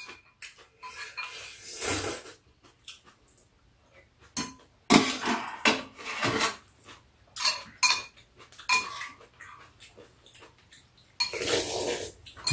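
Metal chopsticks and forks clinking against ceramic bowls, a steel pot and a metal tray during a meal of ramen, in scattered sharp ringing taps, with a few longer stretches of noisy slurping of noodles.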